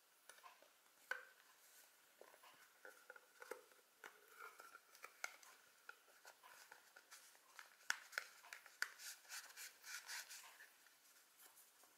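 Faint clicks, scrapes and rustling from hands pressing a crocheted piece onto a jar lid as it is glued on with hot glue. The small sounds come thickest in the middle of the stretch.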